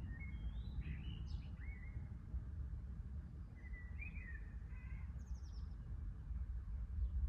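A songbird singing short warbling phrases, one run near the start and another around the middle, over a steady low rumble that swells near the end.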